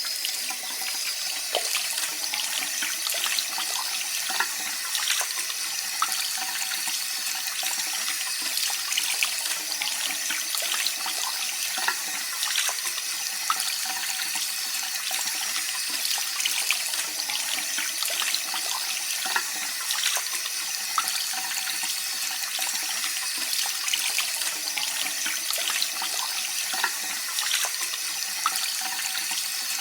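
Water tap running steadily, a continuous stream of water splashing into a sink with small spattering splashes throughout.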